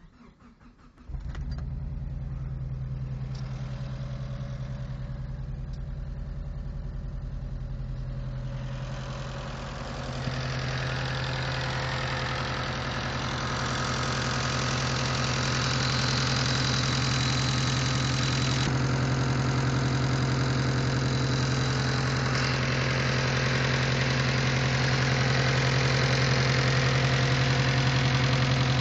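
Mitsubishi 4G63T turbocharged 2.0-litre inline-four running steadily. It comes in abruptly about a second in and gets louder and brighter about ten seconds in. It makes a funny noise that the owner suspects could be lifter tick or a spun bearing.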